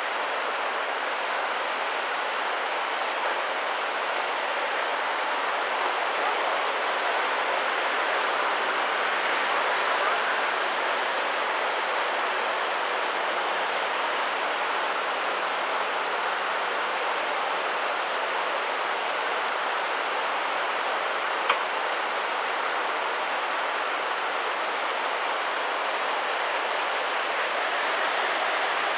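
Steady rush of river water spilling over a low weir and running through shallow rapids, an even hiss with no change in level. A single sharp click sounds about two-thirds of the way through.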